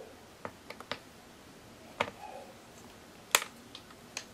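Scattered sharp clicks and taps of a small screwdriver working the screws back into a laptop's base cover. The loudest comes about three and a half seconds in.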